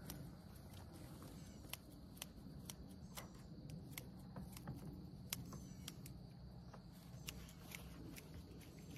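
Faint, irregular light clicks and ticks, a few a second, of fencing wire being twisted to tie a woven wire panel onto a steel T-post.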